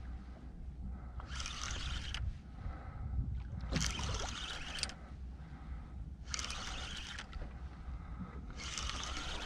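Spinning fishing reel being cranked in short bursts of about a second, roughly every two and a half seconds, as a fish is pumped up, over a low rumble of the boat and sea.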